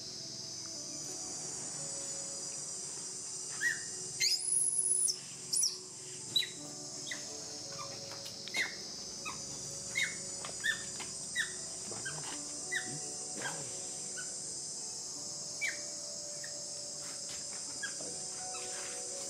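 Young macaque whimpering in distress while being massaged: short, high, falling squeaks every second or so, with a louder run of cries about four to six seconds in. A steady high insect drone runs underneath.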